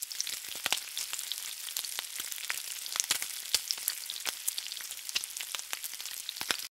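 Food frying in hot oil: a steady sizzling hiss with scattered sharp crackles and pops, which stops abruptly at the very end.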